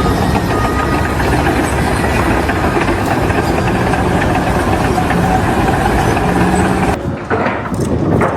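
A large engine running steadily with a heavy rumble. It cuts off abruptly about seven seconds in, where a different clip begins.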